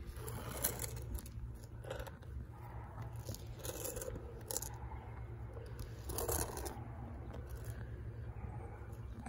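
High-heeled platform sandals stepping on a concrete sidewalk: irregular clicks and scuffs of heels and platform soles, with a steady low rumble underneath.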